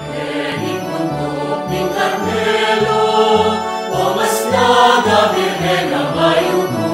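A Kapampangan hymn to Our Lady of Mount Carmel, sung over instrumental accompaniment. The bass notes change about twice a second.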